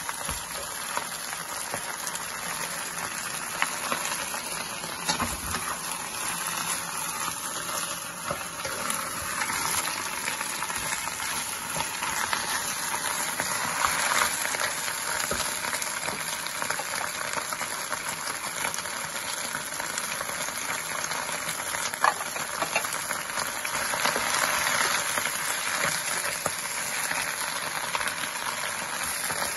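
Lettuce leaves stir-frying in a nonstick wok: a steady sizzle, with the wooden spatula scraping and tossing the leaves and a few sharp taps against the pan.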